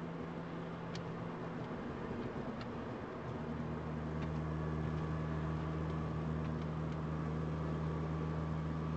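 Car engine and road noise heard from inside a moving car: a steady low hum that grows a little louder about three to four seconds in.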